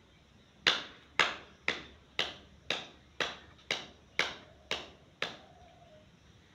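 Ten sharp hand claps, about two a second, each dying away quickly.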